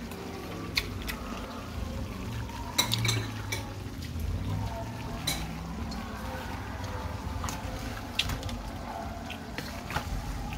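Metal utensils clinking and scraping against cookware in a series of scattered sharp clicks, over a steady low background.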